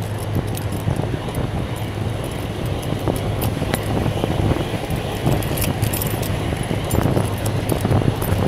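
Steady road and traffic noise from a fixed-gear bicycle being ridden along a busy city road, with frequent small rattling clicks throughout.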